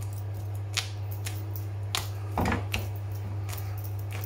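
Feathers being plucked by hand from a red-legged partridge: irregular small snaps and rustles, the strongest about halfway through. A steady low hum runs underneath.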